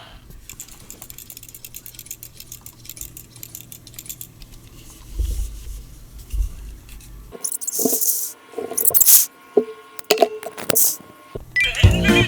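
Plastic DX Nichirin toy sword being handled: faint, rapid clicking and rattling, then, over the last few seconds, several sharper clinks and knocks with brief ringing. Music comes in at the very end.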